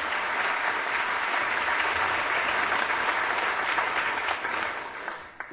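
Audience applauding, a steady even clatter of many hands that dies away near the end.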